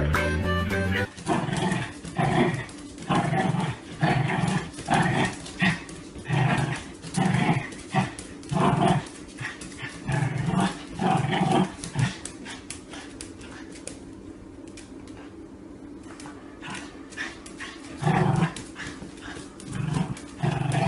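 Small dog growling and barking in short repeated bursts, about one or two a second, as it spins after its own tail; the bursts pause for several seconds partway through and start again near the end.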